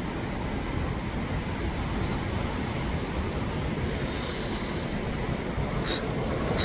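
Ocean surf making a steady low rumble, with a short high hiss about four seconds in and a sharp click near the end.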